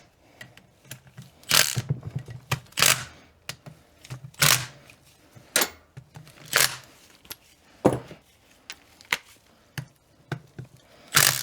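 Hand tools clicking and knocking against metal parts during differential reassembly: sharp separate strokes, some loud and some faint, roughly one a second.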